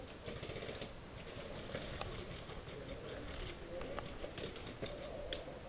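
Faint scattered clicks and rustling over a low background hiss, with a few sharper ticks near the end.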